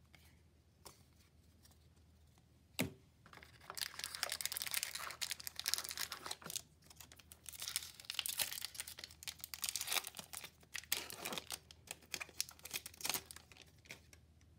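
A trading-card booster pack's foil wrapper being torn open and crinkled by hand, in crackling bursts with short pauses that start about four seconds in. A single sharp click comes just before.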